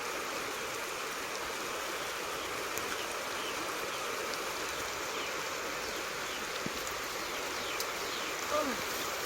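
Steady rain falling, an even hiss, with a few short sliding calls near the end.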